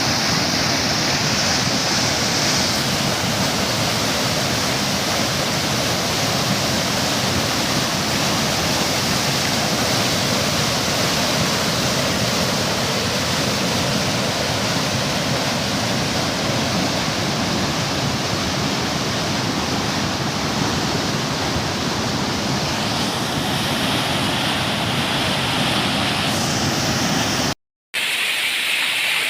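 Steady rushing noise of water in a torrential downpour: heavy rain and runoff. It cuts out briefly near the end and resumes with a slightly brighter hiss.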